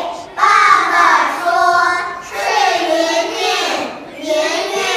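A group of young children reading a Chinese text aloud in unison, in a sing-song chant, with short pauses between phrases.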